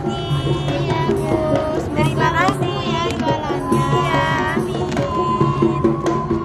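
Background music with a steady drum beat and a gliding melody.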